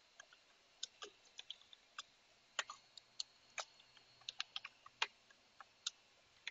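Faint keystrokes on a computer keyboard: short, sharp key clicks at an irregular typing pace, about three to four a second.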